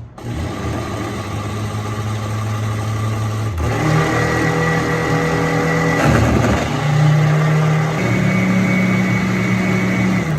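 Oster countertop blender running, its motor pitch stepping up at a change of speed setting about three and a half seconds in and again near the end, with a rougher churning stretch in the middle.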